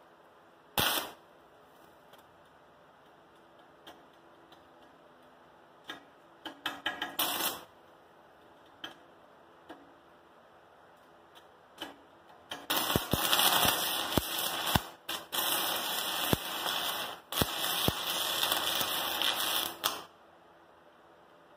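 Stick welding arc from a 36-volt battery-powered arc welder burning a 7018 rod: a few short sputters as the arc is struck, then a steady crackling arc for about seven seconds in the second half, broken by brief drops.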